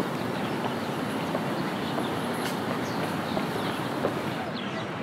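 Outdoor ambience: a steady rushing background noise, with short high bird chirps now and then.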